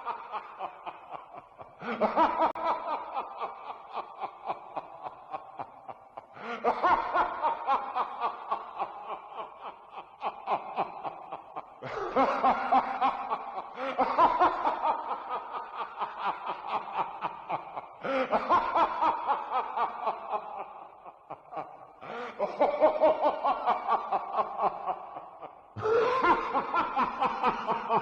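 Evil, villainous laugh sound effect, played again and again: each bout is a rapid run of 'ha-ha' pulses that starts loud and trails off over a few seconds, with a new bout every two to six seconds.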